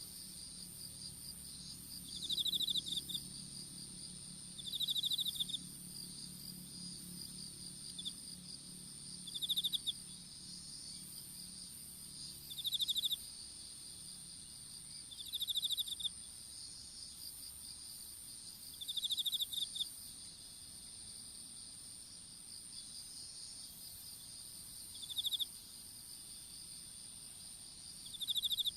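Insects chirping in a field: a steady high-pitched trill underneath, with a louder pulsed chirp repeating about every two to three seconds.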